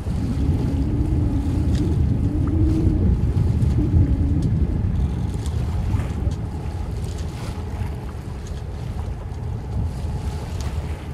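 Wind buffeting the microphone out on open water, a dense low rumble with water noise and a faint steady hum beneath it.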